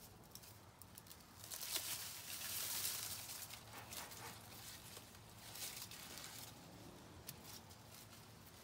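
Dry, frost-killed corn stalks and leaves rustling and crackling as they are handled. The sound is faint, with scattered clicks, and is louder for a couple of seconds starting about a second and a half in.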